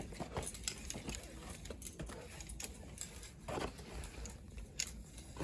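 Metal climbing gear, such as carabiners on a harness, clinking and jangling in scattered light clicks, with a couple of brief scuffs.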